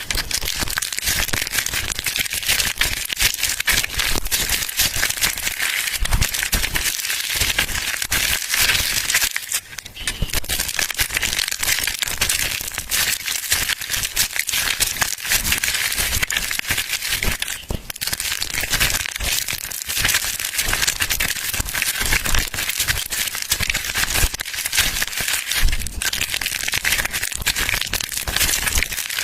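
Crunchy soap being crushed: a continuous dense run of crackling and crunching, with short breaks about ten and eighteen seconds in.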